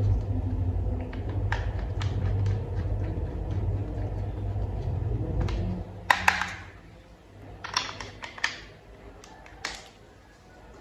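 A low steady hum for about six seconds, then sharp plastic clicks and snaps as toy vehicle parts are fitted together, the loudest a pair of snaps just after the hum stops.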